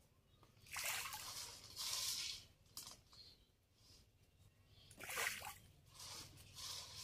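Several short splashes and sloshes of water at a muddy pond's edge, a second or more apart, the loudest about five seconds in.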